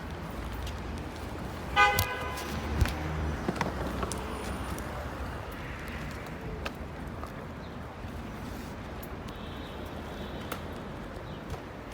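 A single short car horn toot about two seconds in, over steady low outdoor background noise.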